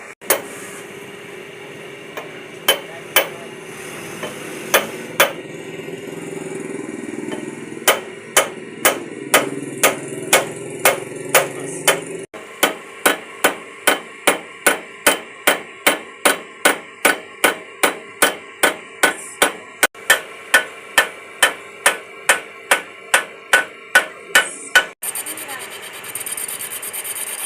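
Hand hammer striking repeatedly: a few scattered blows at first, then a steady run of about two to three sharp blows a second that stops shortly before the end.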